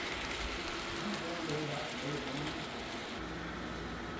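Model train passenger cars rolling along the layout's track: a steady, even rushing hiss. Faint voices of people in the room murmur from about a second in.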